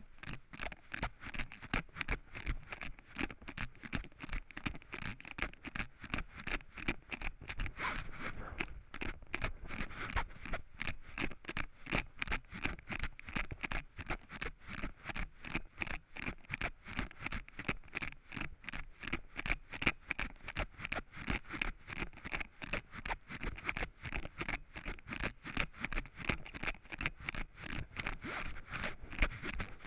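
Running footsteps on a leaf-strewn dirt forest trail, a steady rhythm of about three strides a second, each footfall a scuffing crunch.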